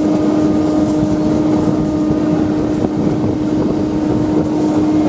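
Electric suburban local train running, a loud steady rumble of wheels and car body, with a single steady hum held through it.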